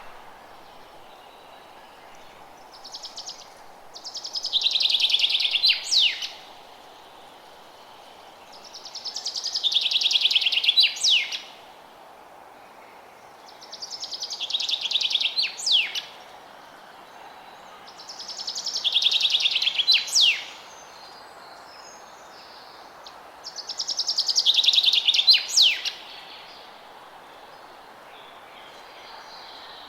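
A forest songbird repeating the same song about every five seconds, six times: a fast high trill that swells in loudness and ends with a few sharp notes. A faint steady background noise runs between the songs.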